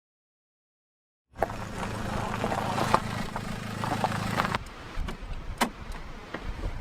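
A car engine idling with a steady low hum, switched off about two-thirds of the way in, followed by a few clicks and knocks from inside the car.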